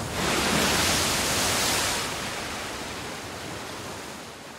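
Rushing sound effect of sea waves. It is loud for about two seconds, then fades slowly away.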